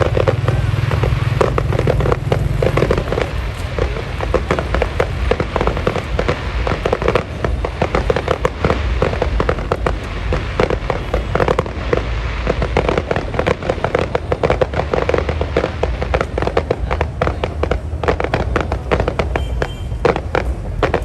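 Fireworks display going off nonstop: a dense, continuous run of bangs and crackles, many per second.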